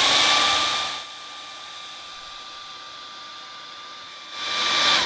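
Handheld hair dryer running, blowing air: a steady high motor whine under a rush of air. It is louder for about the first second and again near the end, and the motor cuts off at the very end.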